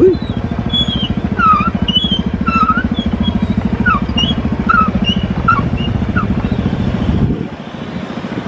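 Motor scooter engine running steadily at close range while riding, with a fast even pulse; the engine sound drops off about seven seconds in.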